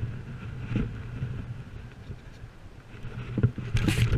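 Low, steady wind rumble on a chest-mounted camera's microphone, with a few short knocks and a louder burst of rustling and handling noise near the end as hands move right in front of the camera.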